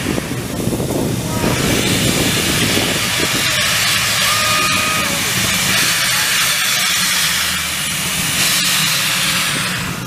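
Steam locomotive 555.3008 blowing steam from its open cylinder drain cocks: a loud, steady hiss that starts about a second in and stops just before the end.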